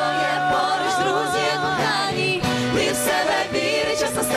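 Pop song with singing by a vocal ensemble. A voice holds one long note with vibrato for about two seconds, then the tune moves on over the accompaniment.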